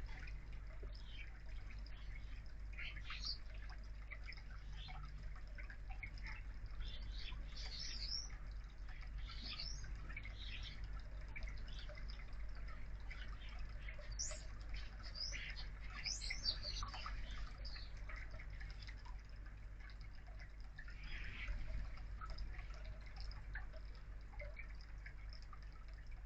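Garden birds chirping and whistling in short scattered calls, busiest in two spells, over a steady low electrical hum.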